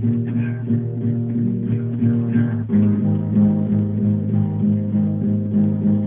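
Background music: acoustic guitar strumming sustained chords, changing chord a little under halfway through.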